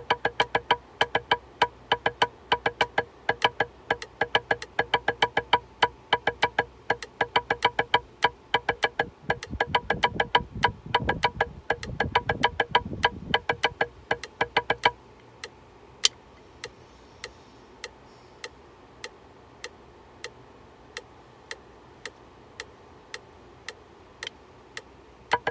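Drumsticks playing a fast, even rudiment pattern on a marching practice pad over a metronome click. About 15 seconds in the playing stops, leaving the metronome ticking about twice a second.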